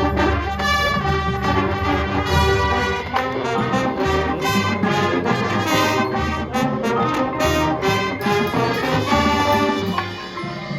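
High school marching band playing, brass carrying held chords and melody over regular percussion hits.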